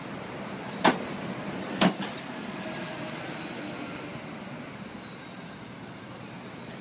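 Steady road traffic noise from cars and a bus passing on a city street, with two sharp knocks about a second apart near the start.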